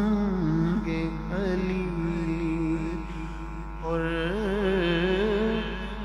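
A man sings a naat solo into a microphone, holding long wavering notes with ornamented turns. The voice dips about three seconds in and a new phrase begins just after. A steady low hum runs underneath.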